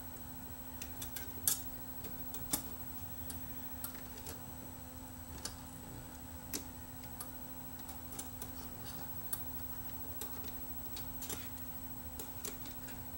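Irregular light clicks and taps of small parts as a rubber cam belt is worked in around the gears of a Technics RS-M275 cassette deck's tape mechanism, over a faint steady hum. The loudest clicks come about a second and a half in and again a second later.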